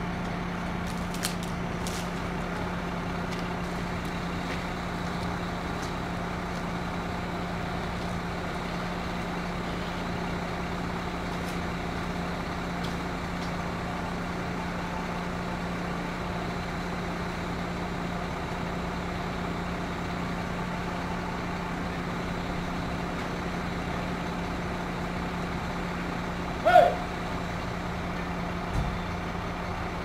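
Crane truck engine running steadily with an even hum. About 27 seconds in comes one short, loud squeal that drops in pitch.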